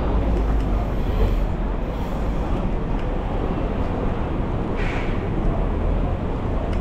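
Steady low rumble of city street background noise, like traffic, with a brief higher hiss about five seconds in.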